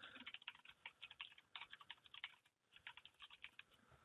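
Faint rapid typing on a computer keyboard: two quick runs of keystrokes with a short break about halfway through.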